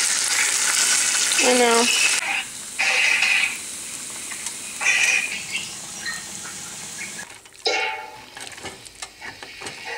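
Tofu cubes sizzling loudly in hot oil in a frying pan. After an abrupt cut about two seconds in, the sizzling is quieter, broken by short bursts of stirring and scraping as the food is turned and tossed in the pan.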